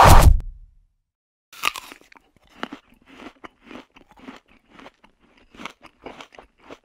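A whoosh with a deep low thud, then a crisp bite into an apple about a second and a half later, followed by steady crunchy chewing at about two chews a second.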